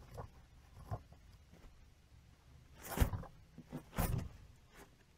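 Rustling and scuffing in wood-shaving cage bedding as small pets scurry through it, with two louder scuffs about three and four seconds in.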